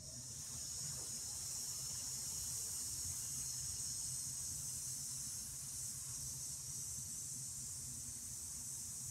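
A steady high-pitched hiss that starts abruptly and holds an even level, with a faint low hum underneath.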